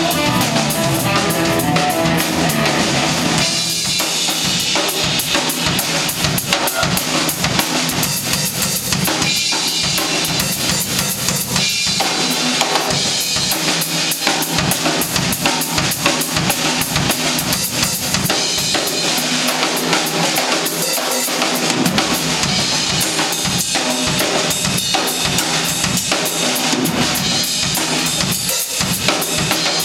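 Drum solo on a Pearl drum kit: a steady run of bass drum and snare hits. The guitar drops out about three to four seconds in.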